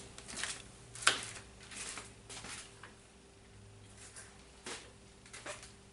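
Quiet handling noises: a few scattered light clicks and taps of hard objects being moved and set down, the sharpest about a second in, over a faint steady hum.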